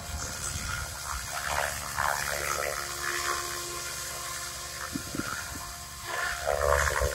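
SAB 700-size radio-controlled helicopter coming down to land: steady rotor whoosh with the motor's whine, getting louder near the end as it settles onto the grass.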